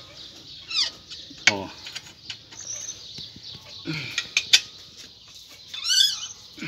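Light metallic clicks and clinks of a wrench turning on the exhaust header nuts of a Honda Bros 125, tightening them down so the exhaust gasket is squeezed to seal. A few short high chirps are heard, about a second in and near the end.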